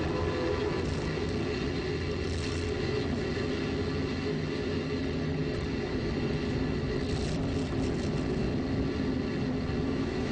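Steady drone with several held hums, picked up on board a Space Shuttle solid rocket booster as it coasts and its speed falls after burnout. Faint rattles come in about two seconds in and again around seven to eight seconds.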